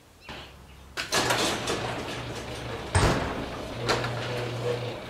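Garage door mechanism rattling, with a steady motor hum and a sharp clack about three seconds in.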